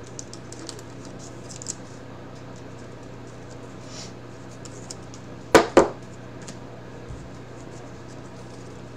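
Baseball cards being flipped and slid through the hands: light rustling and faint ticks, with two sharp knocks in quick succession a little past halfway, the loudest sounds here. A low steady hum runs underneath.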